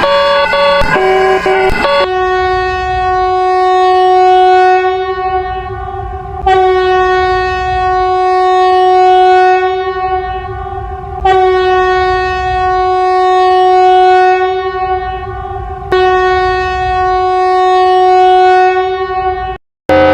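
Emergency warning siren: a short run of changing alert tones, then a single steady tone with many overtones, sounded in four long blasts of about four and a half seconds that each swell and fade in loudness.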